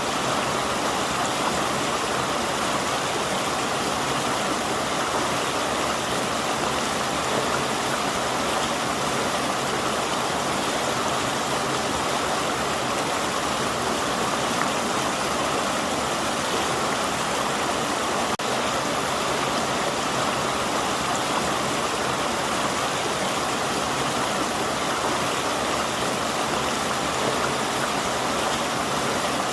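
River water flowing over rocks, a steady, even rushing.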